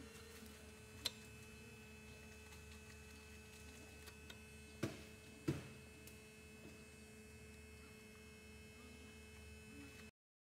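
Faint, steady electrical hum. A small click comes about a second in, and two light knocks follow close together around the middle. The hum cuts off suddenly near the end.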